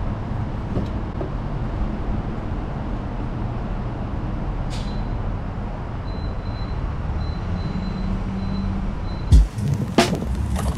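Steady low rumble of an idling car. Near the end come a few sharp knocks and clicks as the car's fuel door is opened by hand.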